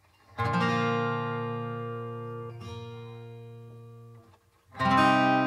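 Background music: a chord struck about half a second in and left to ring and fade slowly, lightly re-struck midway, then another chord struck near the end.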